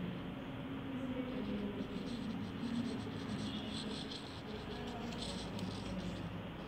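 Paper cut-outs being handled and pressed down onto a sheet, with light rustling and crackling, and a glue bottle picked up near the end.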